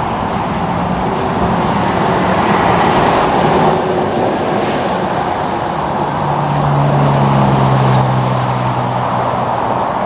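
Road traffic passing: steady tyre and road noise, with a heavy vehicle's engine drone coming up about six seconds in.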